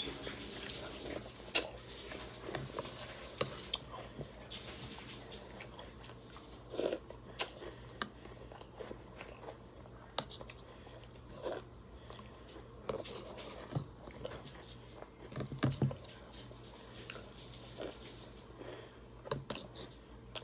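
A person chewing crunchy cereal with milk close to the microphone, with irregular crunches and sharp clicks.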